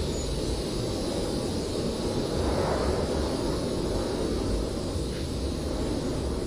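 Blizzard wind blowing as a steady, deep rushing noise, with a gust swelling slightly about two and a half seconds in.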